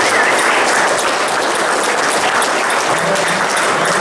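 Audience applauding steadily, a dense patter of many hands clapping, with one person's high wavering call near the start.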